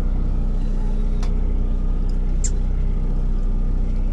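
Fishing boat's engine running steadily, a low even drone, with a couple of faint brief clicks over it.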